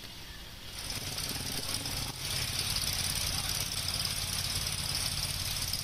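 An engine running steadily, a low rumble with a fine pulse, with a steady hiss above it that comes in about a second in.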